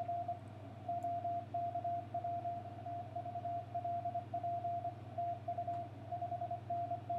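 Morse code (CW) from an amateur radio transceiver: a single steady note keyed on and off in dots and dashes, over a steady low hum.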